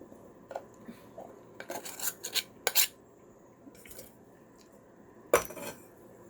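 Cutlery and dishes clinking and scraping. There is a quick cluster of clicks about two seconds in, and one sharp knock near the end.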